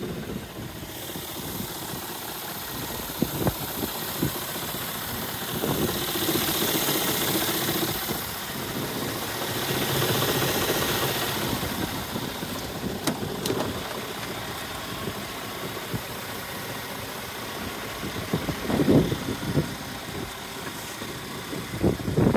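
Diesel truck engine idling steadily, with gusts of wind on the microphone and a few handling thumps near the end.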